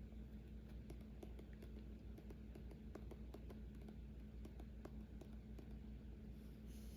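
Faint, irregular light taps and clicks of a pen on a paper puzzle page, over a low steady hum.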